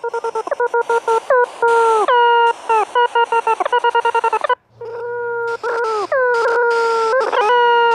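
Synthesized electronic tones from the Desmos graphing calculator. A rapid stutter of short notes, each sliding down in pitch onto the same steady note, is mixed with bursts of hiss. A brief gap falls a little past halfway, and then come longer held notes that start with the same downward slide.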